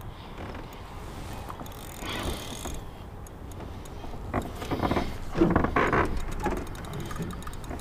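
A landing net and fishing gear clattering and scraping against an aluminum boat hull, over faint ticking from a spinning reel. The clatter is loudest from about four and a half to six and a half seconds in.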